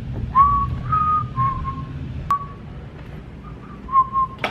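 A person whistling a short run of steady held notes at about the same pitch, with a sharp click about two seconds in and another at the end.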